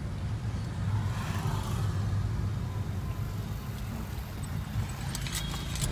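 Inside a moving car's cabin: steady low engine and road rumble while driving. A few short high clicks come near the end.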